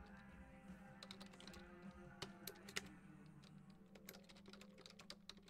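Faint computer keyboard typing: irregular clicks of keys, a few louder ones, over a steady low hum.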